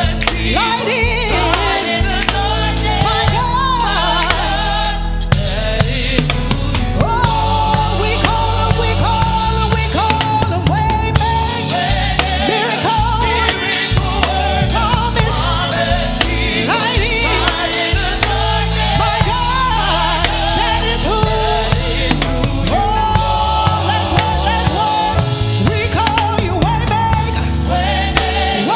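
Live gospel worship music: singers holding and bending long notes over a band with bass and a drum kit, playing without a break.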